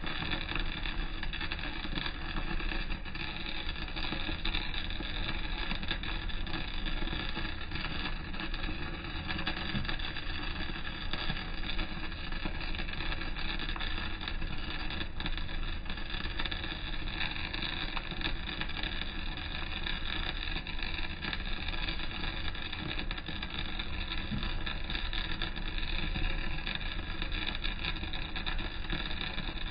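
Arc welding a vertical seam downhill on steel plate: a continuous crackling sizzle of the arc, unbroken throughout, with a steady hum underneath.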